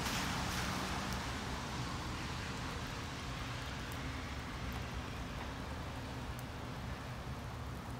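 Steady low engine rumble of vehicles, with the hiss of tyres on wet pavement fading away over the first second.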